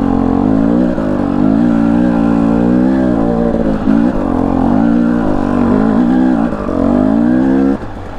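Husqvarna TE 250i single-cylinder two-stroke dirt bike engine running under throttle while riding, its pitch rising and falling as the throttle is worked. It drops off briefly near the end when the throttle is rolled off.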